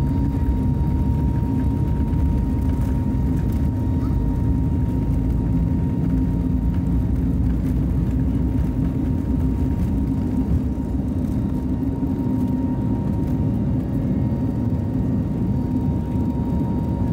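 Airbus A320neo's CFM LEAP-1A turbofan engines at takeoff thrust, heard from inside the cabin: a steady loud rumble with a thin, steady high whine over it.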